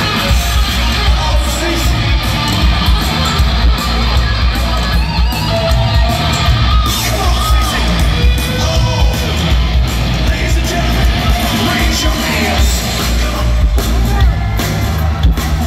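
Live glam-metal band playing loud through an arena PA: electric guitar over bass and drums, with yells from the crowd.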